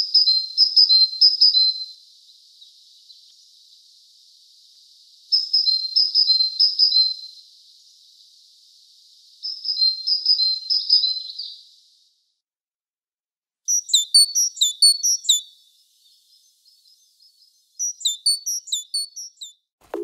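Birdsong: a bird sings a short phrase of high repeated notes three times, a few seconds apart, then quicker, higher chirping comes in two bursts.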